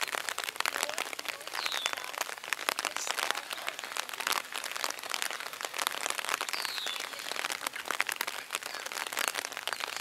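Rain pattering on an umbrella over the microphone, a dense crackle of small drops with no siren tone. A couple of faint, short high chirps come through it.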